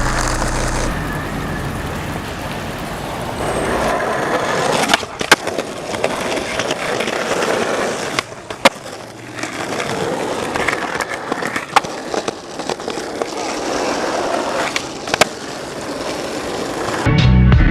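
Skateboard rolling, its wheels giving a steady rolling noise that swells and fades, broken by about half a dozen sharp clacks of the board popping and landing.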